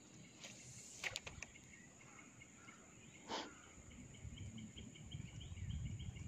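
Faint insect chirping, an even row of high ticks about six a second starting a little before halfway, over a steady high insect drone. A few soft clicks come about a second in, and a brief swish a little after three seconds.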